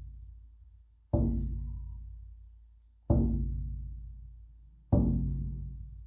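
Deep drum struck slowly, about one stroke every two seconds, each stroke booming and then fading away; three strokes.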